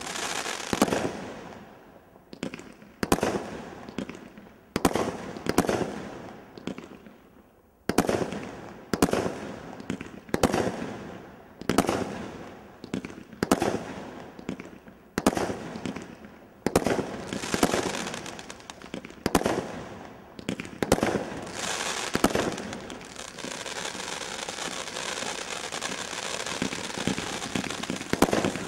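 Grand Slam GS2352GB multi-shot firework firing a rapid sequence of shots, about one a second, each a sharp bang followed by a fading crackle of the bursting stars. There is a brief lull about seven seconds in. From about two-thirds of the way through, the crackling runs on continuously.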